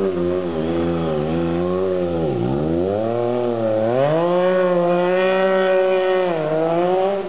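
Triumph motorcycle engine revving as it is ridden in stunts, its pitch wavering up and down. The pitch dips low about two and a half seconds in, then climbs and holds high for a couple of seconds before falling back near the end.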